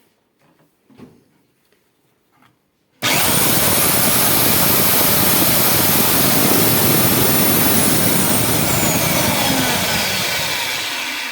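Bosch PBS 75A belt sander switched on about three seconds in and running loudly with a high whine over the motor noise, the whine falling and the noise easing off near the end as it winds down. It is a test run after a bearing was fitted to its toothed-belt drive pulley.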